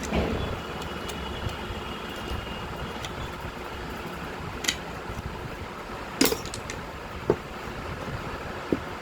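A few sharp clicks and knocks over a steady background hiss; the loudest comes about six seconds in.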